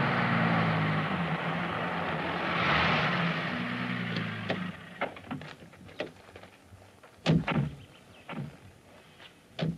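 A car's engine running with road noise, swelling about three seconds in and cutting off just before five seconds as the car stops. Then a series of knocks and clicks of car doors opening and slamming, the loudest two close together about seven and a half seconds in and another near the end.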